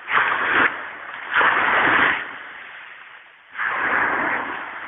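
Water sloshing and splashing in three short bursts of rushing noise, each between half a second and a second long.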